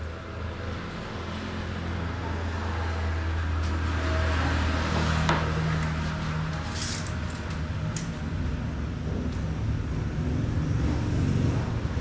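An engine running with a steady low hum that grows louder over the first few seconds, with a couple of faint knocks near the middle.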